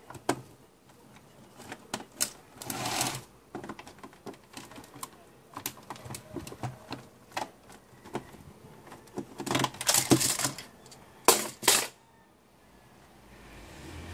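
Screwdriver working screws out of a robot vacuum's plastic chassis: scattered small clicks and ticks, with louder scraping rattles about three seconds in and again around ten seconds, and a couple of sharp knocks just after.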